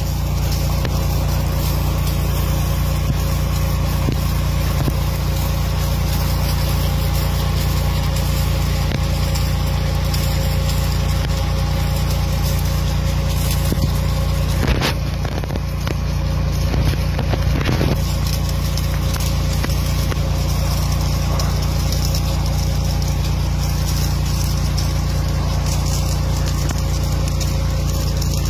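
An engine running steadily with a deep, even drone, and a few brief knocks about halfway through.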